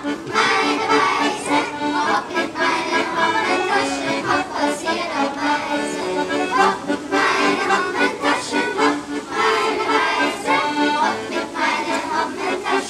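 Klezmer band playing a tune with a steady beat and held chords.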